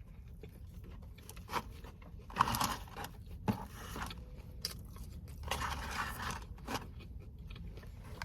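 Close-up eating sounds: biting into and chewing a McDonald's Chicken Big Mac, a breaded chicken burger. Scattered wet clicks, with two louder bite-and-chew stretches, about two and a half seconds in and again around six seconds.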